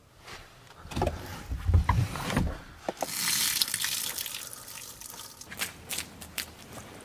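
A few dull thumps and knocks, then a steady hiss of rain that fades, followed by a run of sharp taps.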